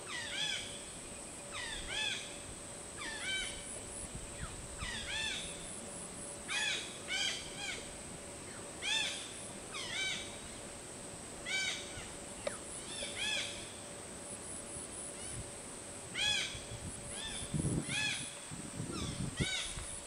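A crow cawing over and over, short calls often in pairs every second or two. Low rustling comes in near the end.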